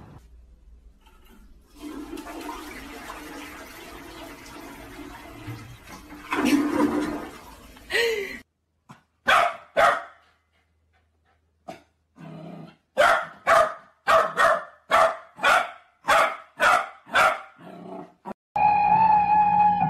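A toilet flushing with a steady rush of water, then a dog barking about ten times in quick succession, roughly two barks a second.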